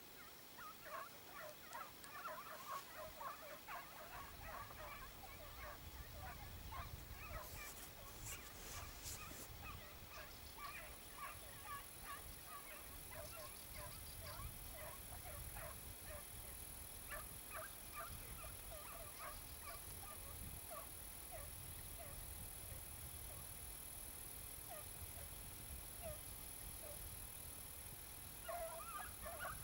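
A pack of hare hounds giving tongue on the trail, faint, in quick overlapping yelps. Wind rumbles on the microphone, and a steady high-pitched whine comes in about ten seconds in.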